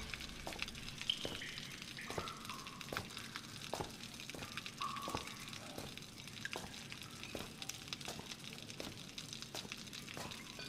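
Water dripping in a cave: irregular plinks and ticks, some with a brief pitched ping, over a faint hiss.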